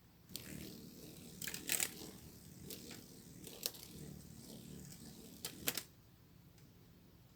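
A run of sharp clicks and crackling rustle, loudest about a second and a half in and again near five and a half seconds, stopping about six seconds in.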